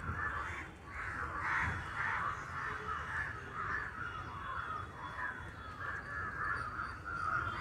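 Crows cawing, many at once, in a continuous chorus of overlapping calls.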